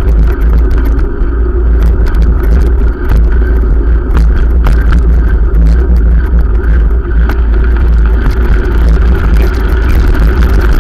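Wind buffeting and rolling noise on a camera mounted on a moving bicycle: a loud, steady low rumble with frequent small clicks and rattles.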